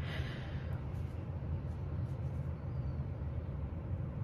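Steady low rumble of background noise with no speech, a constant hum concentrated in the bass and a brief soft hiss right at the start.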